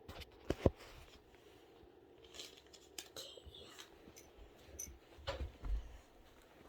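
Dolls and toy accessories being handled and set down: two sharp knocks about half a second in, then rustling, and soft thumps near the end.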